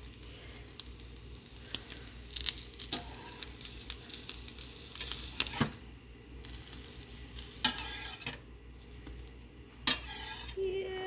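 Eggs sizzling on a hot griddle pan, with a slotted metal spatula scraping and clicking against the pan's surface now and then.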